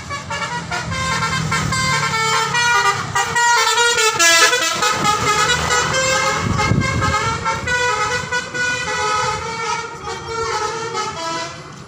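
Basuri 'telolet' musical vehicle horn playing a tune, several horn tones stepping from note to note without pause.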